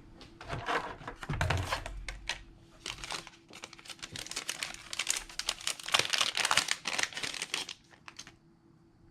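Thin plastic crinkling and rustling as it is handled, in irregular bursts for about eight seconds, loudest a little past halfway, then stopping.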